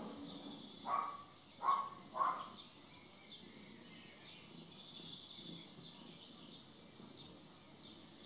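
Three short, sharp animal calls in the first few seconds, over faint bird chirping in the background.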